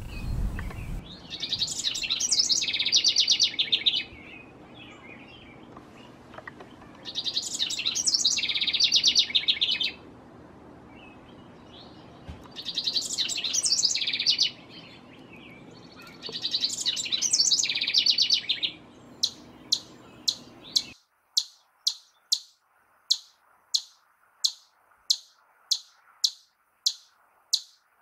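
A songbird singing in phrases of about three seconds each, four phrases with short pauses between. Near the end a different bird takes over with a short, high chirp repeated nearly twice a second.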